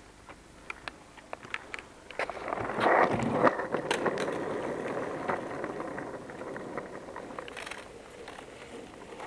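Skateboard wheels rolling on rough asphalt, a rattling rumble with scattered clicks. It starts about two seconds in, is loudest about a second later, then slowly fades.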